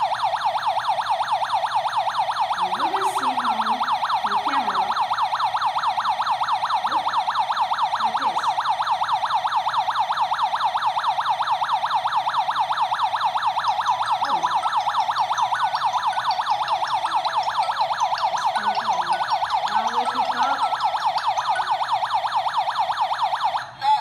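Alarm panel's siren (WL-JT-10GDT Wi-Fi/GSM alarm system) sounding loudly in a fast, continuous warble, set off by a triggered door sensor. It cuts off abruptly near the end.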